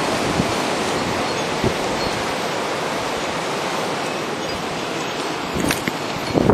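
Wind blowing hard, a steady rushing noise partly buffeting the microphone, with a few stronger gusts near the end.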